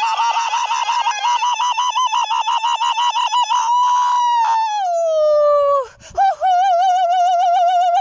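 A woman's high-pitched whoop, chopped into a rapid 'wa-wa-wa' by her hand patting over her open mouth. It then becomes one long high note that slides down and breaks off. After a short gap, a second held high note wavers in a fast vibrato.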